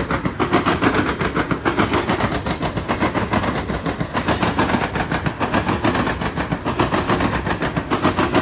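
Steel wheels of a loaded Norfolk Southern coal train's cars clattering over the switches and rail joints: a loud, continuous run of fast metallic clacks.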